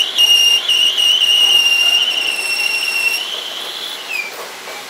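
WM210V bench lathe turning a metal shaft, the cutting tool giving a steady high-pitched squeal with overtones that wavers slightly. About three seconds in the pitch steps up a little, and just past four seconds it slides down and fades.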